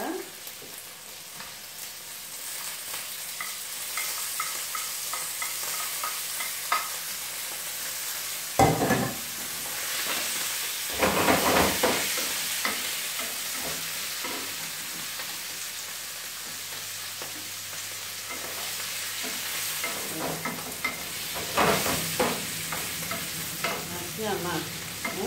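Sliced carrots sizzling in oil in a frying pan while being stirred, a steady hiss. The stirring spoon scrapes and knocks against the pan, loudest about nine, eleven and twenty-two seconds in.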